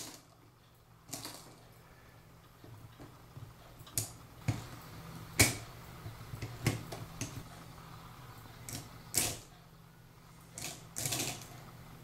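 Sharp metallic clicks and taps at irregular intervals from a brass clock movement as its mainspring is let down with a let-down key, the click released to let the spring slowly unwind.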